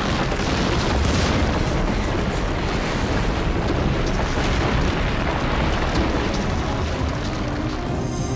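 Loud, continuous rumbling roar of rock breaking up and collapsing, a cartoon sound effect with heavy low rumble and no separate strokes. Music comes in near the end.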